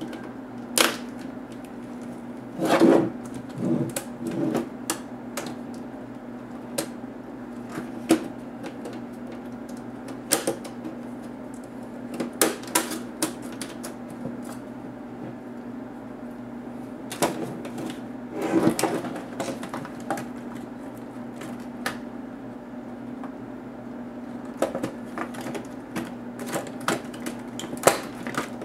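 Plastic clicks, snaps and knocks from the Compaq NX7400 laptop's plastic top case being pried off its clips and lifted away, with a small screwdriver tapping against it. There are two denser bursts of crackling, about three seconds in and again near the twenty-second mark less two, around eighteen seconds. A steady low hum runs underneath.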